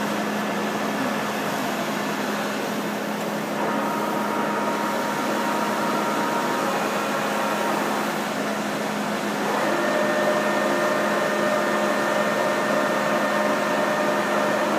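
Poreba TR135B2/3M heavy-duty lathe running in its low speed range, driven by its 50-horsepower two-speed main motor: a steady hum with gear whine. A new set of whining tones comes in about three and a half seconds in, and the tones change again and get slightly louder about nine and a half seconds in.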